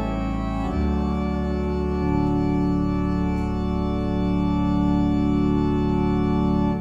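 Church organ playing sustained full chords, moving to a new chord about a second in and again at two seconds, then holding a final chord that cuts off abruptly near the end.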